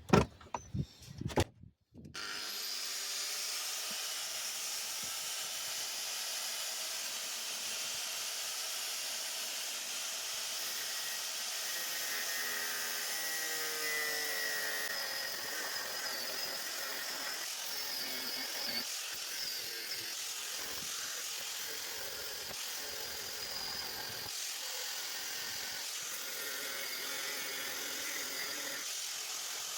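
Angle grinder with a cutting disc cutting a recess into metal: a few knocks, then about two seconds in a steady grinding that runs on without a break.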